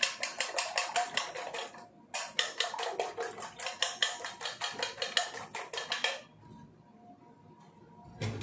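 Three eggs being beaten by hand in a stainless-steel bowl: a metal utensil clinks rapidly against the bowl, about six strokes a second, with a brief pause about two seconds in, and the beating stops about six seconds in. A soft low thump near the end.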